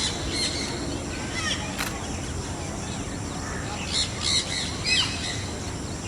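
Peafowl giving short squawking calls: a few near the start, then a quick cluster about four to five seconds in, over steady background noise.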